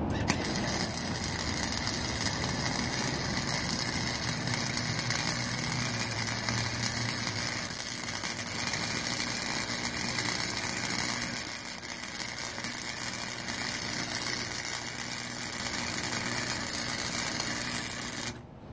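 Chicago Electric 125-amp flux-core wire-feed welder running a bead on rusty scrap steel at its maximum heat setting. A steady crackling arc hiss with a low hum underneath, cutting off suddenly near the end.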